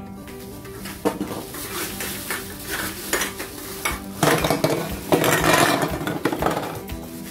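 Empty aluminium drink cans clattering and knocking together as they are tipped out of a plastic bag onto a table, with the bag rustling; the loudest run of clatter comes from about four to six seconds in.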